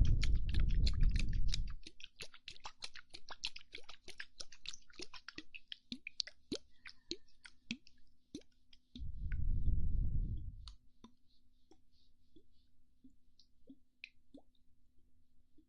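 ASMR mouth sounds: rapid wet clicks and pops of lips and tongue close to the microphone, thinning out after about six seconds. Breath is blown onto the microphone twice, at the start and about nine seconds in, as a low rumbling gust.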